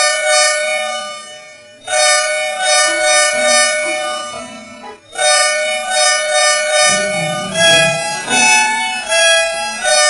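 Bus horn sound effect: a reedy two-tone horn sounding in long blasts of about three seconds each. In the last couple of seconds it switches between several different pitches in short notes, like a musical horn playing a little tune.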